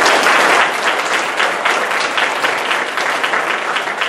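Audience applauding, a dense patter of many hands clapping, loudest in the first second and tapering off gradually.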